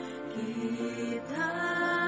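Slow Indonesian worship song: a woman sings long, held notes over soft accompaniment. A new sustained note begins a little over halfway through.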